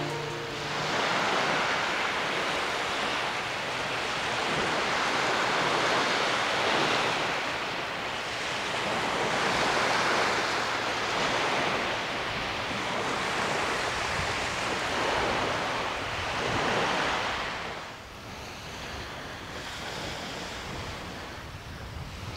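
Lake Superior waves washing onto a sandy beach, with wind. The wash swells and fades every few seconds, then drops to a quieter, steadier hiss about eighteen seconds in.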